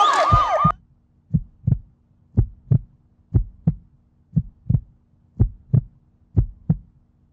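Loud crowd noise with a repeating falling siren wail cuts off suddenly under a second in. A heartbeat sound effect follows: pairs of low thumps, about one pair a second, over a faint steady hum.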